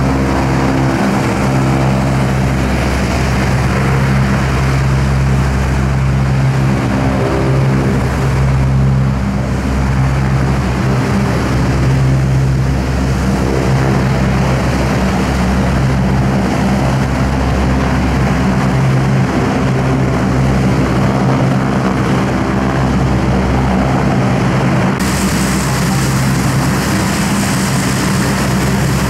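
Aircraft engines running steadily: a deep, even drone with a held pitch that does not rise or fall.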